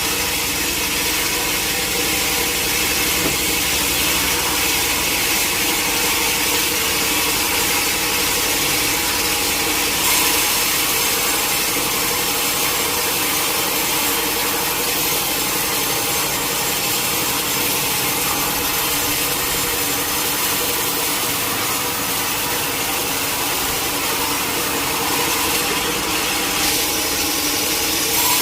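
Sawmill saw cutting through a large teak log: a steady, continuous rasp of the blade in the wood over the machine's steady running hum, the cut growing a little brighter about ten seconds in.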